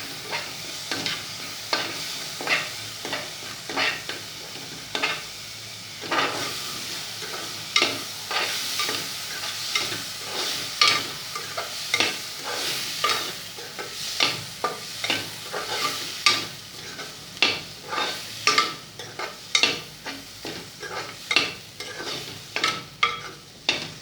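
A spatula stirring and scraping tomato puree sautéing in oil with onion and spices in a cooking pan: a steady frying sizzle with sharp strokes of the spatula about once or twice a second.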